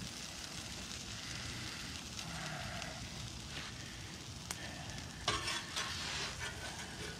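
Food sizzling on a Blackstone flat-top griddle, a steady hiss, with metal spatulas scraping on the griddle top about five seconds in as filling is scooped onto a tortilla.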